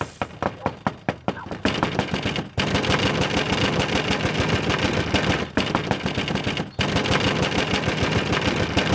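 Rapid, heavy pounding on a front door, several blows a second, kept up with only a few short breaks.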